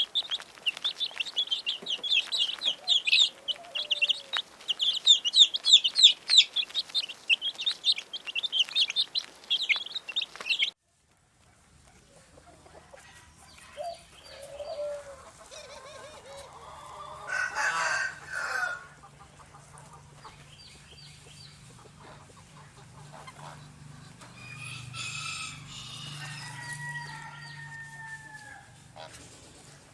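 Chicks peeping rapidly and continuously, many high calls overlapping; they cut off abruptly about a third of the way through. A quieter stretch with a faint low hum follows, in which a rooster crows once loudly in the middle and other chickens call near the end, some with falling notes.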